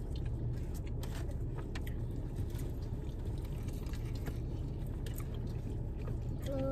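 People chewing and eating, with scattered small clicks and scrapes, over a steady low rumble.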